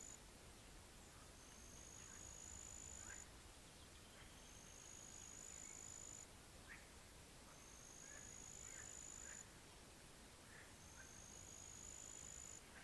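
Faint pond-side nature ambience. A high, thin, steady note, rising slightly and lasting nearly two seconds, repeats about every three seconds, with scattered faint short bird chirps between.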